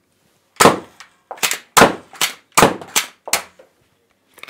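Plastic mechanism of a Nerf Alpha Strike foam-dart blaster being worked, making a quick series of about eight sharp clacks over three seconds.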